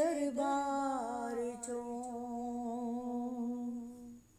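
A woman's voice humming the closing note of a Punjabi naat, unaccompanied: a few short slides in pitch at first, then one long steady note that fades out just before the end.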